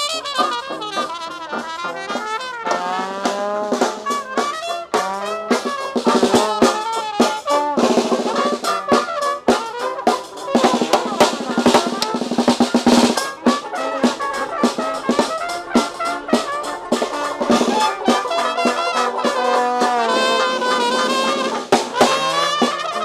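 Background music: brass band with trumpets, trombones and drums playing a lively tune.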